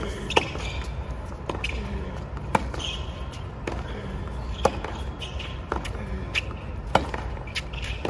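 A tennis rally on a hard court: sharp pops of racket strings hitting the ball about once a second, the loudest four from the near player about two seconds apart, with quieter hits and ball bounces from the far end between them.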